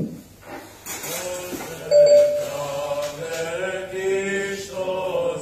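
A short knock, then Orthodox church chant sung by a group of voices with long held notes, heard through a laptop speaker on a video call.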